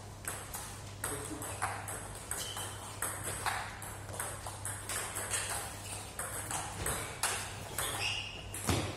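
Table tennis balls clicking off bats and tables in quick, irregular succession, about two to three clicks a second from several rallies at once, over a steady low hum.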